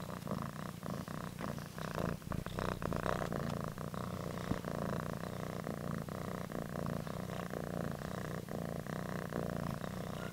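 Domestic cat purring steadily right at the microphone as it nuzzles the camera, with a few soft clicks and rustles mixed in, most of them about two to three seconds in.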